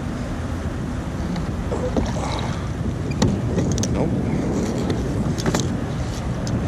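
Wet magnet-fishing rope hauled hand over hand into a kayak, with water dripping and splashing and scattered small clicks and knocks, over a steady rushing noise.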